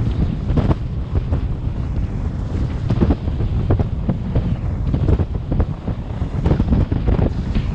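Wind buffeting the microphone of a camera riding on a recumbent bike coasting fast downhill, a loud steady rumble. Short knocks break through it now and then.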